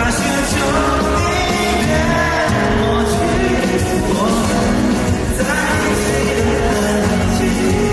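A man singing a ballad live into a microphone over band accompaniment, the vocal line rising and falling.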